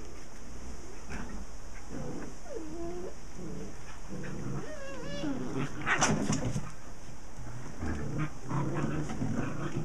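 Curly-coated puppies play-wrestling with their mother and each other: short low growls and grunts, with a few whining calls that slide up and down in pitch, and a louder scuffle about six seconds in.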